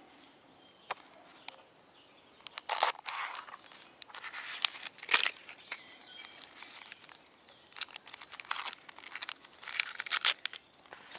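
Dry red onion skin being peeled off by hand: papery crackling and tearing in a few short bouts.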